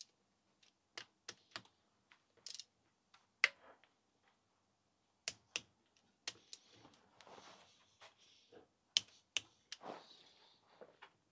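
Irregular sharp clicks of a ratcheting torque wrench and socket loosening the camshaft cap bolts on a VW Golf GTI 16V cylinder head, with soft handling noise in between.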